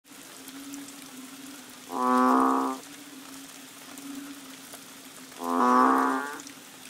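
Two loud, drawn-out mooing frog calls, each just under a second long, the first about two seconds in and the second about three and a half seconds later, over a faint steady low tone. The frogs are taken by the uploader to be banded bullfrogs (Kaloula pulchra).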